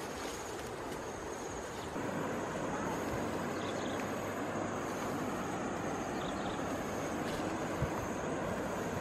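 Steady rushing outdoor noise, a little louder from about two seconds in, with a thin, high insect buzz running above it and a couple of faint knocks near the end.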